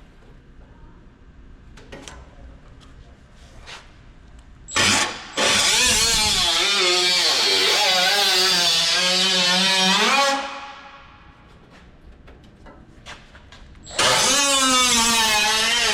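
Power cutting tool making rough cuts in a car's quarter-panel sheet metal. It runs in loud spells: a short blip about five seconds in, a run of about five seconds, then another run near the end. Its whine wavers in pitch as it bears on the metal, and there are light handling clicks between the runs.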